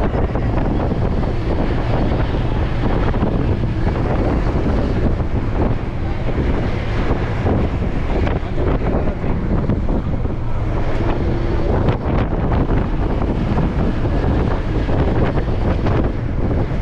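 Steady wind noise buffeting the microphone of a moving vehicle, with the vehicle's running noise underneath.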